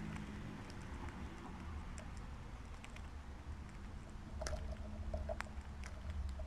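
Squirrel eating at a seed tray close to the microphone: scattered small clicks and ticks of seeds being cracked and picked over, with a few sharper cracks a little past the middle, over a low background rumble.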